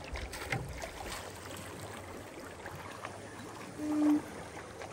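River water rushing and lapping against the side of a small fishing boat, with a few small splashes. A brief low hum sounds about four seconds in.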